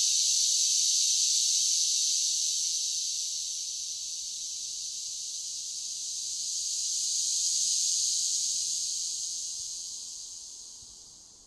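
Steady high-pitched chorus of insects, easing off a few seconds in, swelling again, then fading out near the end.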